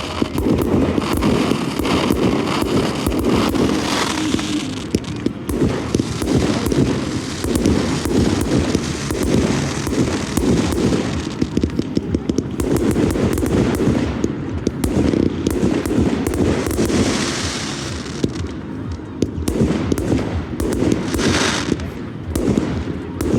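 Fireworks going off in a dense, continuous barrage of bangs and crackles, with a few brief louder hissing bursts along the way.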